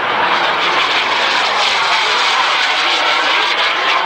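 Radio-controlled model jet flying overhead, its engine giving a loud, steady rushing whine.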